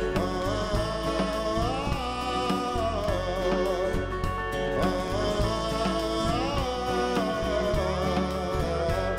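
Live country music: a man sings long held notes while strumming an acoustic guitar, backed by a band with drums.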